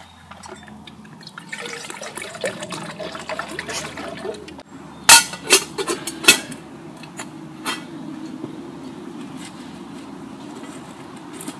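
Water poured into a small stainless steel pot for a few seconds, followed about five seconds in by several sharp metal clanks as the pot's lid is handled.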